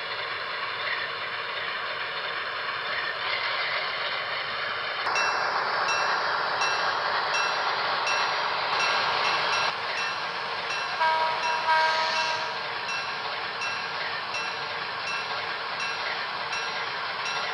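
Alco FA diesel locomotive sounds from an MTH HO-scale model: the diesel engine runs steadily, a bell rings over it from about five seconds in, and a short horn blast sounds around the middle.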